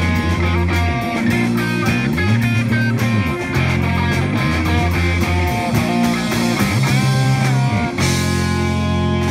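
Live rock band playing an instrumental funk-rock jam: two electric guitars, a bass guitar sliding up and down between notes, and a drum kit. About eight seconds in the playing settles into a held, ringing chord.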